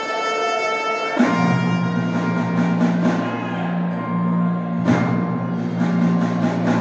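Symphony orchestra playing live in a hall. About a second in, a strong low held chord comes in under the upper voices, and percussion strokes land three times: about a second in, at the midpoint and near the end.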